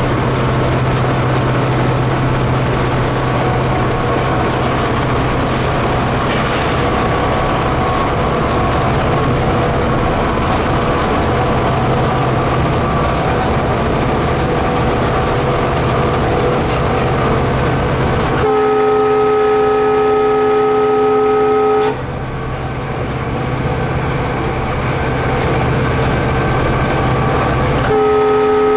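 Cab of an EMD GT46MAC (WDG4D) diesel locomotive, its 16-cylinder two-stroke turbocharged 710 engine in notch 8 at about 105 km/h: a steady loud engine and rail noise with a low hum. About two-thirds through, the multi-tone air horn sounds a chord for about three seconds, and it sounds again near the end.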